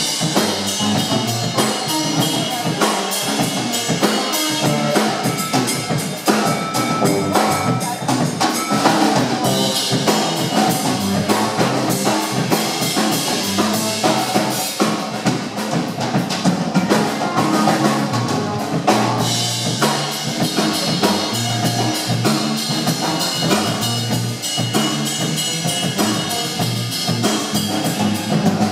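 A live rock band playing an instrumental jam: a Pearl drum kit with bass guitar and electric guitar. The cymbals thin out for several seconds in the middle, then come back in full.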